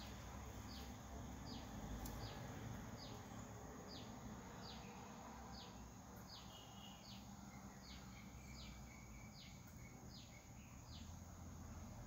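Faint, regularly repeated high chirps, about one every half second, each dropping in pitch: a bird calling in the background, with a few flatter notes in the middle, over a low steady hum.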